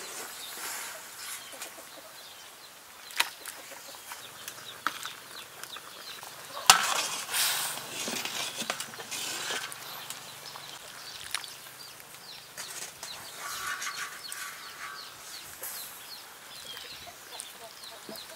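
Scattered metal clinks and knocks of a ladle against a cooking pot and metal tray while soup and frogs are served out, with one sharp knock about a third of the way in. Chickens cluck in the background.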